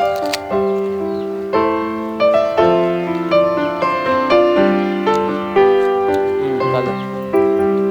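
Background music: a piano or keyboard melody with chords, notes struck at a steady, even pace.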